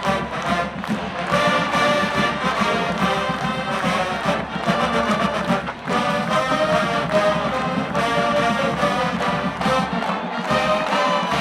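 Marching band playing: brass carries the tune over a steady drum beat.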